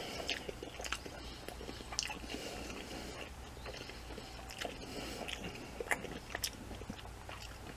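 A person chewing a mouthful of food, with scattered faint mouth clicks.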